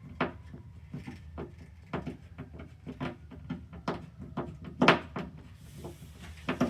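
Short, irregular knocks and clicks from handling a mechanical doorbell chime unit and its screws while fitting it to the wall, the loudest knock about five seconds in.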